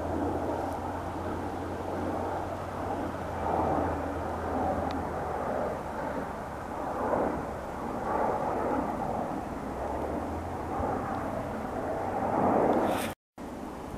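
Jet airliner on landing approach, a broad rushing roar that swells and fades repeatedly and is loudest near the end, over a steady low hum that stops about ten seconds in. The sound cuts out abruptly shortly before the end.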